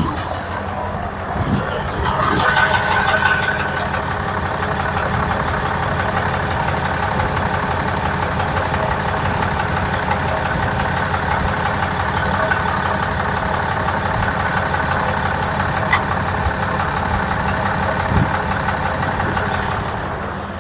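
Ram 2500's Cummins diesel idling steadily, with a short hissing rush about two seconds in.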